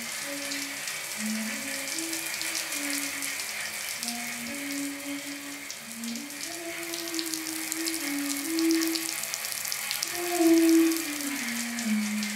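Steady hiss of running water, with a slow, low tune moving in small steps and glides over it, swelling louder near the end.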